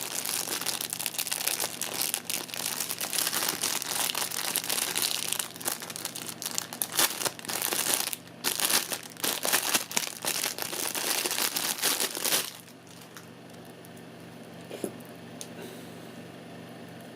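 Plastic packaging crinkling and rustling as it is handled, dense and crackly, stopping about twelve seconds in; after that only a quiet room with a faint low hum.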